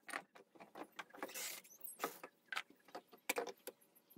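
Small metal carburetor parts being handled: an irregular string of light clicks and clinks, with a short rustling scrape about a second and a half in.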